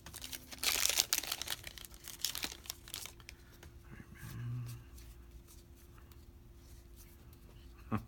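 Crinkling and rustling of a foil trading-card pack wrapper and cards being handled, loudest in the first second, then a few lighter rustles and clicks. A brief low murmur about four and a half seconds in, then quiet.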